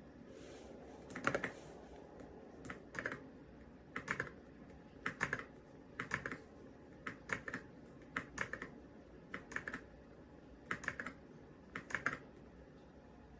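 YUNZII X98 gasket-mounted mechanical keyboard with pre-lubed switches being typed on: short clusters of two to four keystrokes, about one cluster a second.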